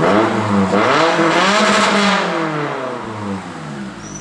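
Car engine accelerating, its pitch climbing for about two seconds and then falling away as it lets off, with an airy hiss over the top from an exhaust-tip turbo whistle.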